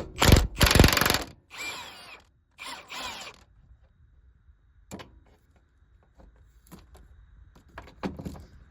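Front suspension bolts being run out with a power wrench: three short bursts of the tool in the first few seconds, the first the loudest. Then scattered clicks and knocks of tools and metal parts.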